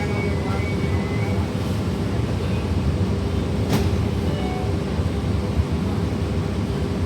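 Transit bus interior: steady low engine and road rumble with a constant hum, and one sharp click a little under four seconds in.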